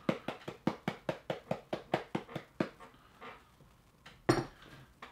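Spice shaker of ground pepper shaken rapidly up and down, about five rattling taps a second, stopping about two and a half seconds in. One louder knock follows about four seconds in.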